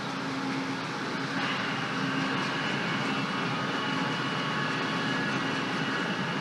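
Sandpaper scraping cured resin off the inside wall of a fibreglass pressure vessel's side port: a steady abrasive noise that gets louder about a second and a half in.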